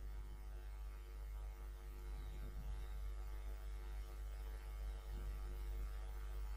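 Low steady electrical hum with faint background noise, no distinct events.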